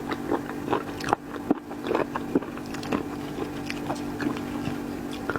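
Close-miked mukbang eating sounds: a person chewing seafood with wet smacks and short mouth clicks, irregular and frequent, over a steady low hum.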